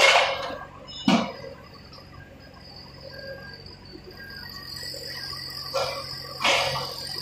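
Small diesel engine of a mini excavator running with a steady low hum, broken by four loud knocks: one at the start, one about a second in, and two close together near the end.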